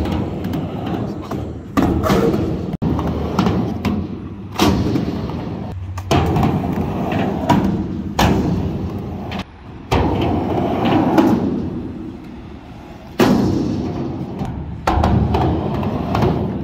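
Skateboard wheels rolling on concrete ramps with a rumble that swells and fades, punctuated by sharp clacks and thuds of the board hitting and landing. It comes in several separate takes that start and stop abruptly every few seconds.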